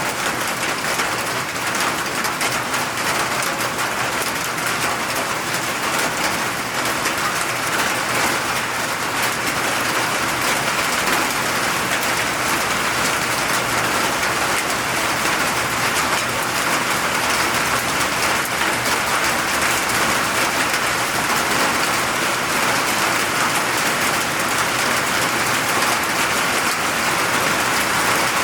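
Steady rain falling and pattering on surfaces, a dense even hiss of many drops.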